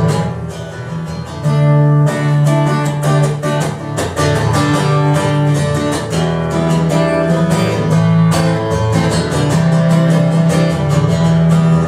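Acoustic guitar strummed in a steady rhythm, playing chords without singing.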